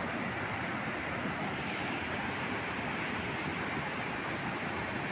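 Steady rushing of a river in flood, swollen by rain.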